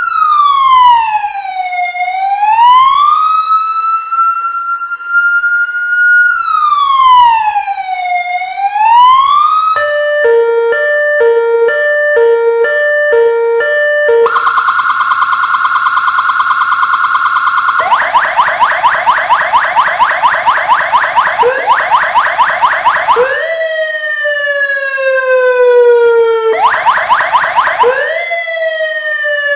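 Yuanhao CJBWX-AS92-P5 100W electronic police siren switching through several tones: a slow rising and falling wail, then a stepped pattern of alternating tones, a fast warble, a rapid yelp, and finally repeated slow falling sweeps that jump back up to pitch.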